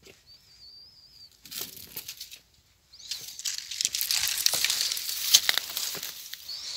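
Dry vegetation crackling and rustling, loud and dense with many sharp snaps, from about three seconds in, after a brief thin wavering whistle near the start.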